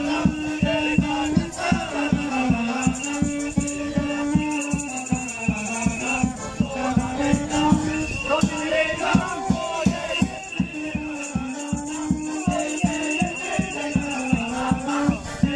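Lively folk band music with an accordion playing a melody over a fast, steady drum beat of about four beats a second.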